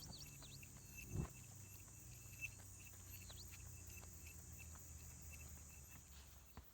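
Faint steady high-pitched buzzing of insects, with short repeated chirps and a few quick bird-like calls over it, and a soft thump about a second in.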